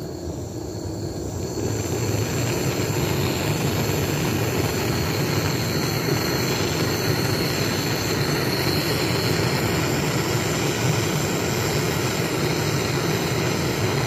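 Gas brazing torch burning with a steady, loud hiss as its flame heats a pinched copper refrigeration tube to braze it shut against leaks. The flame noise swells about a second and a half in and drops away sharply at the end.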